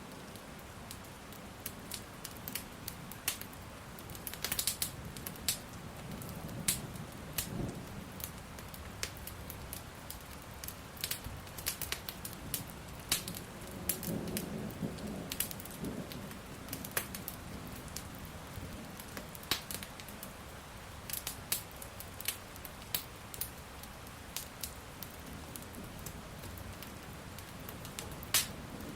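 Wood fire crackling with frequent sharp pops over a steady hiss of falling rain. Low thunder rumbles swell twice, about a quarter of the way in and again near the middle.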